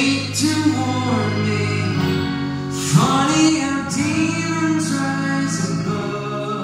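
Live pop-rock ballad: a male singer holding long sung lines into a microphone over strummed acoustic guitar and sustained keyboard chords.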